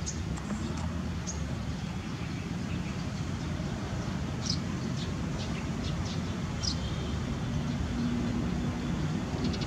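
Steady low rumble in the background, with a few short, high chirps scattered through it, about half a dozen in all.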